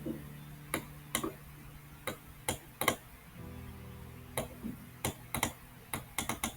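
Computer mouse and keyboard clicks, about a dozen sharp clicks at irregular intervals, over a faint low hum.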